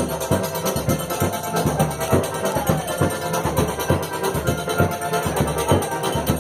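Forró dance music with a steady, quick beat and percussion.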